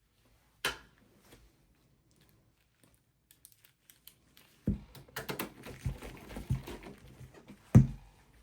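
Clicks and knocks of hands working on a small desktop computer case and its parts: one sharp click near the start, then from about halfway a busy run of rattling knocks, with a loud knock near the end.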